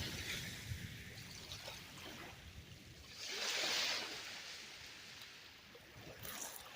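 Small lake waves washing onto a rocky, sandy beach, one wash swelling up and fading about three seconds in.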